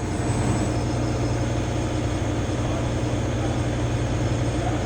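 CNC milling machine cutting a finishing pass on a mold with a ball-end mill: a steady machining drone with a strong low hum and faint high whining tones over it.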